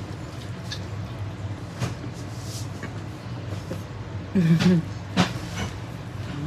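A short hummed "mm" from a person reacting to a bite of food, a little over four seconds in, over a steady low room hum and a few faint clicks.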